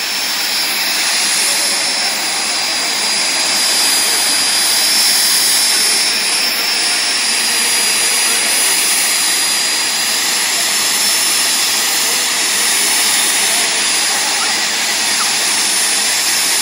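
Jet drag cars' jet engines running at the starting line: a loud, steady roar with a high-pitched turbine whine on top.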